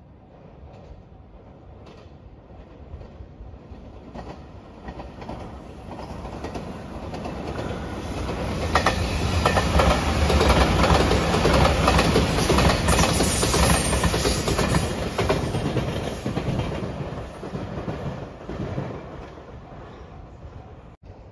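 JR Shikoku 8000 series electric limited express train passing: it grows louder, is loudest about halfway with wheels clicking over rail joints, then fades away.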